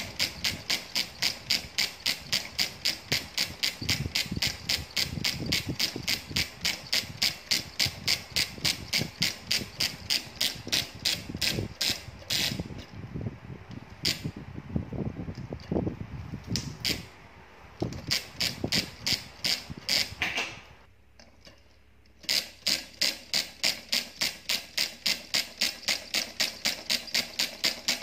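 Homemade syringe solenoid engine running, with rapid, regular mechanical clacking at about five a second as the coil pulls the plunger and turns the flywheel. Midway it stutters, goes quiet for about a second and a half, then picks up again at the same quick pace.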